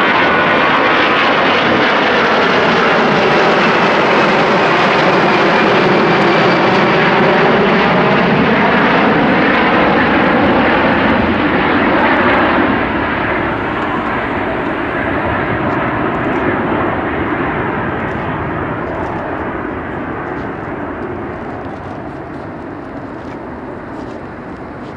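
Jet noise from an Airbus A340-300's four CFM56-5C turbofans at takeoff power as the airliner climbs out past overhead, loud, with a slowly sweeping, phasing tone as it passes. From about halfway it fades steadily as the aircraft departs, the high end dropping away first.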